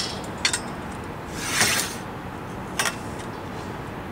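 Metal clicks and a short scrape as a spit clip and chicken spike are worked along a steel rotisserie spit rod, the clip a tight fit: one click about half a second in, a scraping swell around a second and a half, and another sharp click near three seconds.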